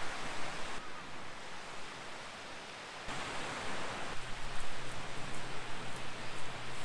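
Broad rushing noise of wind and water, stepping abruptly louder or softer a few times, with a faint low hum in the latter half.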